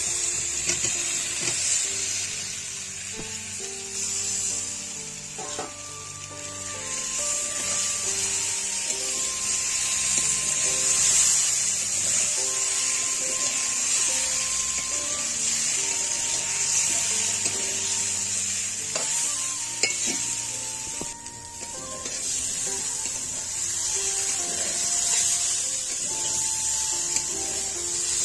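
Potato and cauliflower pieces sizzling steadily in hot oil and spices in a metal pan, stirred with a metal spatula.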